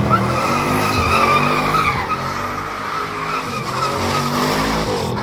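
Car doing a burnout: its spinning tyres squeal steadily while the engine runs hard at high revs.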